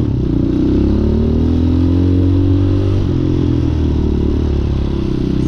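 Hawk 250 motorcycle engine running under way, its pitch rising gradually over the first couple of seconds as it picks up speed, then dropping about three seconds in.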